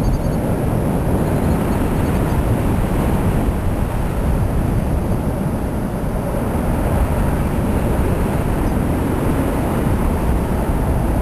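Wind rushing over a microphone carried in paragliding flight: a loud, steady low rumble with a hiss above it.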